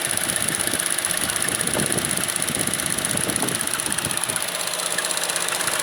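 Opel Astra J GTC engine running at idle with a steady high-pitched squeak over it. The cause of the squeak is unknown; the owner rules out the crankshaft oil seal sucking air, since the seal is dry, and suspects a wire.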